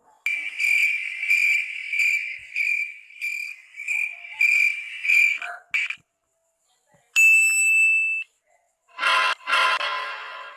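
Cricket-chirping meme sound effect: high chirps about twice a second for some five seconds. After a pause comes a single bright ding about a second long, and near the end a short, louder tonal sound starts.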